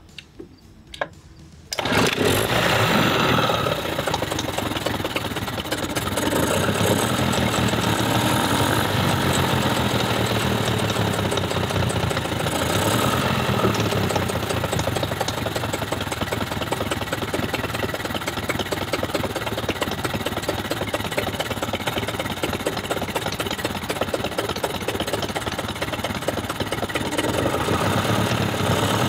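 Mercury 25 hp two-stroke outboard motor, its carburetor freshly rebuilt, catching and starting about two seconds in after a few clicks, then running steadily.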